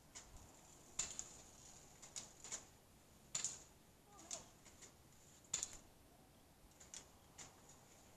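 Airsoft guns firing single shots, a scattered run of sharp clicking pops at irregular intervals, a few louder than the rest.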